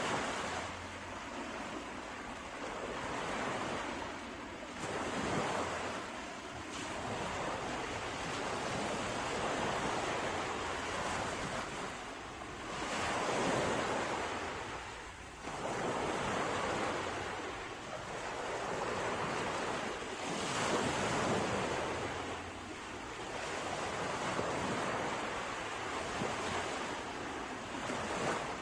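Sea waves washing onto the shore, a steady rush of surf that swells and falls back every few seconds.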